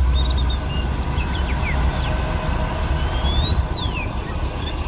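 SANY truck crane's diesel engine running at idle, a steady low rumble with a faint even hum above it. Birds chirp several times over it with short sliding calls.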